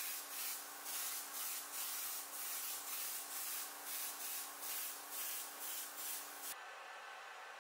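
Heat gun blowing hot air over a freshly painted leather boot to dry a coat of leather paint. Its hiss rises and falls about every two-thirds of a second over a steady motor hum, then cuts off suddenly about six and a half seconds in.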